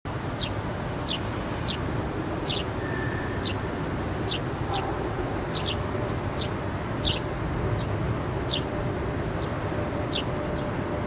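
A small bird calling with short, high, downward-sweeping chirps, roughly one to two a second and irregularly spaced, over a steady low background rumble.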